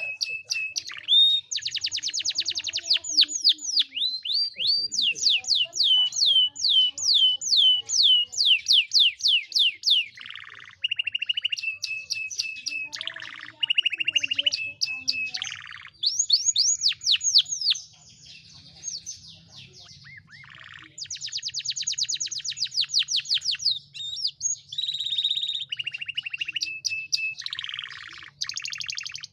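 Domestic canary singing a long, varied song of rapid trills of fast repeated sweeping notes alternating with short held whistles, briefly softer about two-thirds of the way through; a canary trained with other birds' phrases, used as a lure song to get quiet canaries singing.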